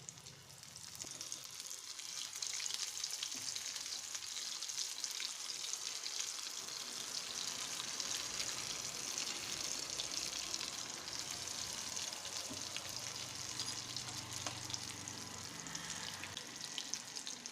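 Breadcrumb- and cornflour-coated chhana (paneer) cutlets frying in hot oil over a medium flame: a steady sizzle full of fine crackles, building up over the first couple of seconds, the sound of the coating crisping.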